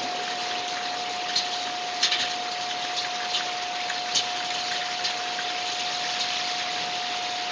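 Heavy rain pouring steadily, with a few sharp drips and splashes standing out, and a thin steady tone running underneath.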